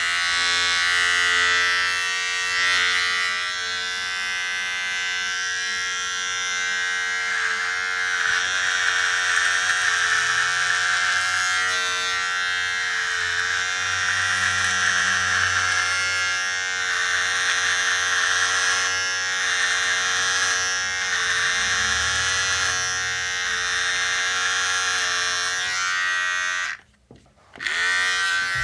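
Electric razor running with a steady, high buzz. It cuts out briefly near the end and starts again.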